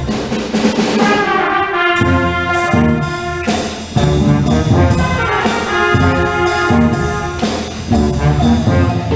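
Middle school band playing live: a brass-heavy passage, with trumpets and trombones holding chords over a steady drum beat.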